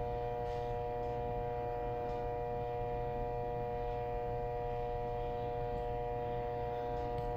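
Steady electrical hum made of several constant tones over a low drone, unchanging and with no other events.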